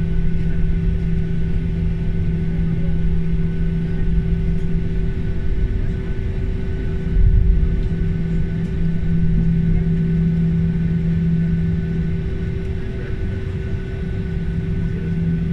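Boeing 737-800's CFM56-7B engines at taxi idle, heard from the cabin over the wing: a steady drone with a low hum and a fainter high whine over a low rumble. A brief louder bump about seven seconds in.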